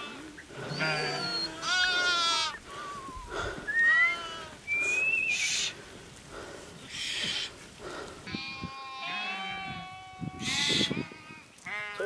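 Large flock of sheep bleating, many wavering calls overlapping one after another, with a few short hissing sounds in between.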